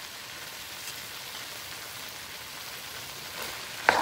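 Chicken and mixed vegetables sizzling steadily in a frying pan on low heat, with a single sharp clank near the end.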